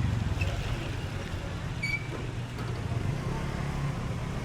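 Steady low rumble of street traffic, with a vehicle engine running close by. A short high-pitched beep sounds about two seconds in.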